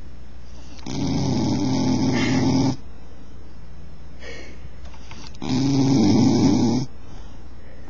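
Bull terrier snoring in its sleep: two long snores about four and a half seconds apart, each lasting under two seconds.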